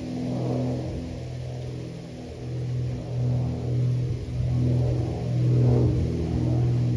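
Aircraft flying overhead: a steady, low engine drone that swells and fades a little, loudest a few seconds before the end.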